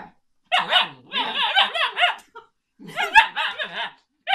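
Husky-type puppy 'talking': two runs of wavering, yodelling whines and grumbles, then a short one near the end.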